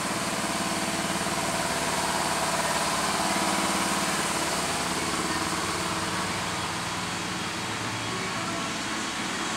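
Steady mechanical drone, an engine-like hum with a constant pitch over a broad hiss, holding level without change.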